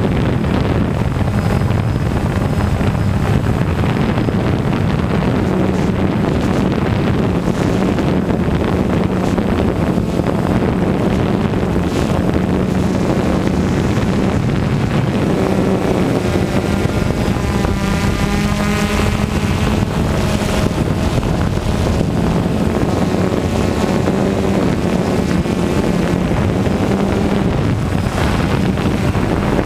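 Quadcopter drone's motors and propellers buzzing steadily, picked up by the drone's own microphone along with wind rushing across it. For a few seconds around the middle, higher tones waver up and down as the motors change speed.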